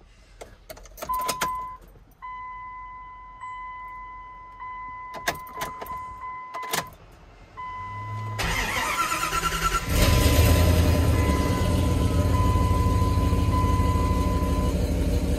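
A few clicks and a steady electronic warning chime, then the 1999 Dodge Ram 1500's 5.2-litre (318) V8 cranks over for about a second and a half. It fires about ten seconds in and settles into a steady idle. This is its first start on a newly installed fuel pump, fitted to cure a surging idle.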